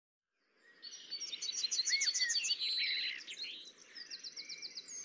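Birds chirping and singing, starting about half a second in: overlapping trills of rapid, repeated high notes over a faint low background noise.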